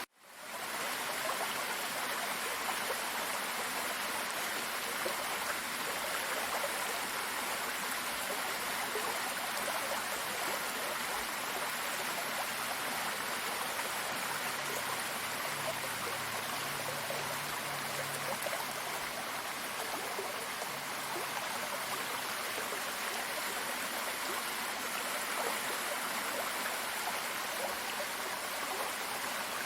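Waterfall's running water, a steady even rush that fades in quickly at the very start.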